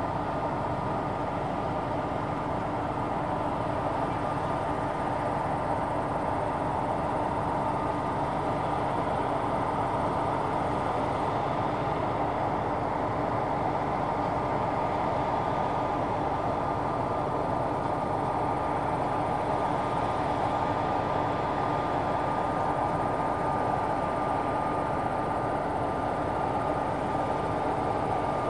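Claas Tucano 480 combine harvester running steadily while harvesting wheat: a constant machine drone with a steady high whine.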